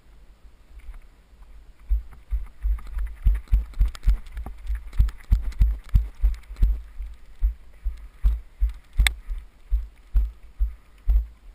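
Mountain bike descending a rough, stony dirt track: a quick, irregular run of low thumps and knocks as the wheels and frame jolt over rocks and ruts, with wind buffeting the helmet-mounted microphone. One sharp crack stands out about nine seconds in.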